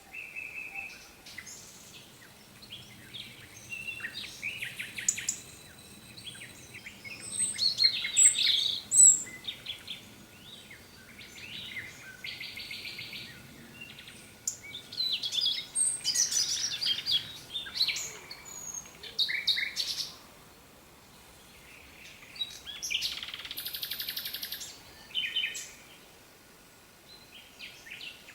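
Songbirds singing: a run of varied chirps, trills and buzzy phrases, one after another with short gaps between them.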